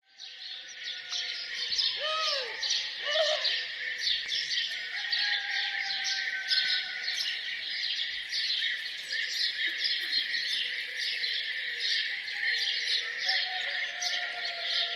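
Dense morning chorus of many small songbirds chirping and twittering continuously. A few lower, arched calls come about two and three seconds in.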